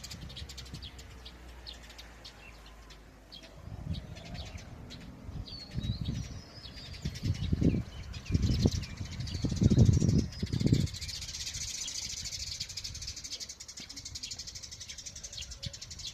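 Outdoor nature ambience: a few bird chirps, a run of low rumbles in the middle, and from about eleven seconds in a steady high pulsing chirr.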